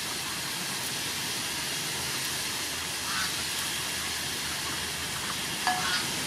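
Steady hiss and sizzle of chicken pieces cooking in a steaming pot.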